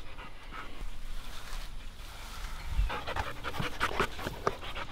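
Pit bull–type dogs panting fast, louder from about three seconds in.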